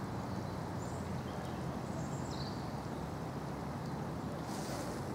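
Wind blowing on the microphone in heavy rain: a steady low rumble with an even hiss of rain above it.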